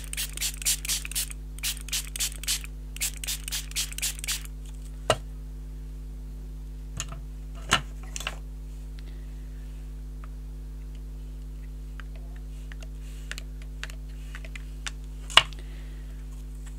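Hand pump spray bottle spritzing water onto craft paper in a quick run of about fifteen short hissing squirts over the first four seconds. Then a few single knocks, the loudest near the end, over a steady low hum.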